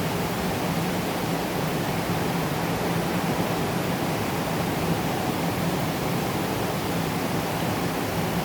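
Moderate rain falling steadily, an even hiss without a break.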